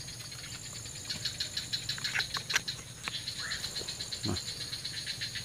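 Dusk chorus of swamp insects: rapid, even pulsed chirping with a steady high-pitched whine behind it. A couple of sharp clicks come about halfway through, and a short low sound near the end.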